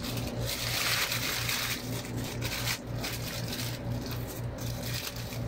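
Paper burger wrapper crinkling and rustling as it is peeled off and crumpled by hand, densest in the first two seconds, then in scattered crackles.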